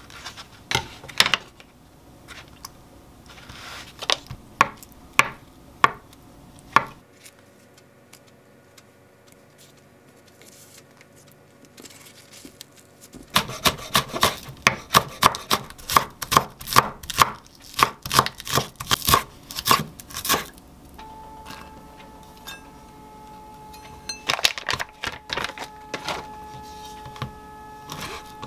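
Chef's knife chopping on a wooden cutting board: a few scattered knocks at first, then a quick run of strokes, about four a second, while a green onion is chopped. A faint steady hum comes in after the chopping.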